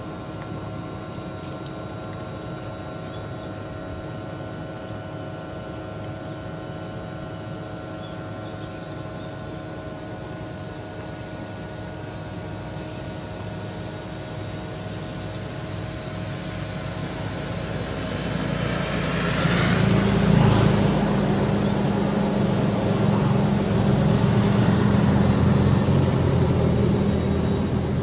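A motor engine running with a steady hum, growing louder about two-thirds of the way through and staying loud to the end.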